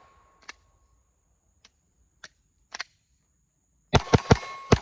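Pistol fired at half-inch steel A-zone targets. A few faint sharp clicks come in the first three seconds, then four loud shots in quick succession near the end, with the steel plate ringing after hits.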